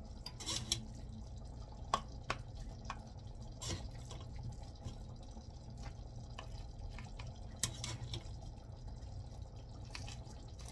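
Mashed pumpkin being scooped into a measuring cup: scattered small clicks and wet drips, over a steady low hum.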